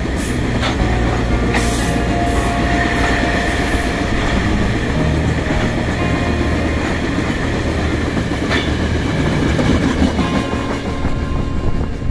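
A train running through the station with a steady rumble, its wheels clicking over the rail joints now and then.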